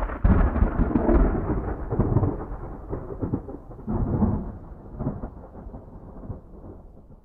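A deep rolling rumble that starts sharply, swells again twice, and slowly dies away over several seconds.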